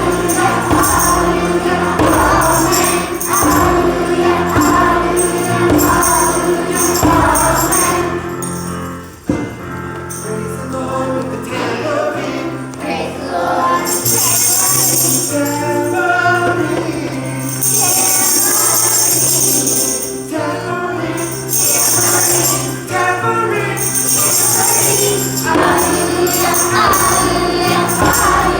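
Children's choir singing with instrumental accompaniment. From about halfway through, bursts of shaken jingles, like a tambourine, join the song several times.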